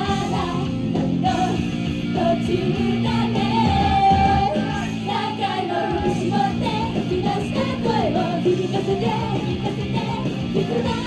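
Japanese idol pop song performed live: female voices singing into handheld microphones over loud, steady amplified backing music with guitar.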